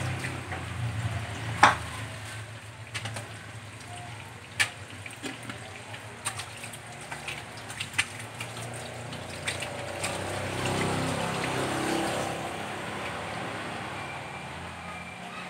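Hands being washed under running water over a wet tiled sink and floor drain, with splashing and a few sharp knocks, the loudest about a second and a half in.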